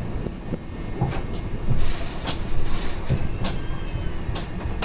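Subway car running on the rails, heard from inside the car: a steady low rumble with a string of sharp, unevenly spaced clacks and rattles.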